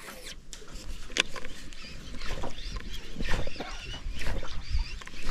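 Propeller topwater lure being jerked back across the water surface on a baitcasting reel, giving short splashes about once a second, over a background of chirping wild animal calls.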